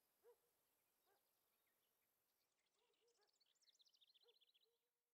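Very faint birdsong over a low hiss: a few short, lower calls, then a quick run of high chirps from about three seconds in, fading out at the end.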